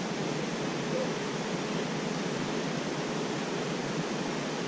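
A steady, even hiss of background noise with no distinct sounds in it.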